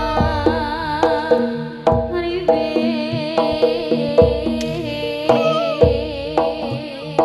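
Javanese jaranan ensemble music: kendang drum strokes about every half second over sustained gong-like tones and a wavering melody line.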